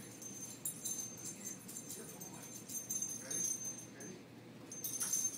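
Metal tags on dog collars jingling in quick, irregular clinks as border collies run and scramble after a frisbee.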